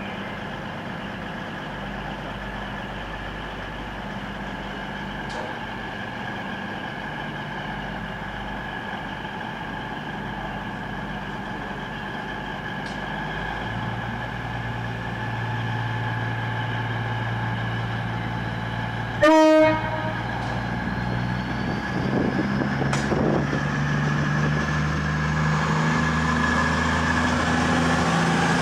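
Class 221 Super Voyager's underfloor diesel engines running at the platform, their drone growing louder from about halfway through as the train powers up and begins to pull away. About 19 seconds in, one short, loud horn toot.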